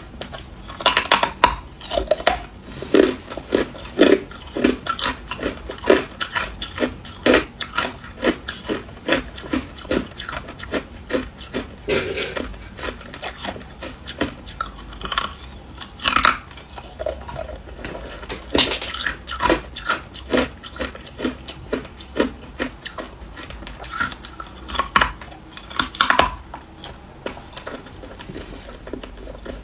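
Ice being bitten and chewed, close to the microphone: irregular sharp crunches and crackles, a few louder crunches among quicker small ones.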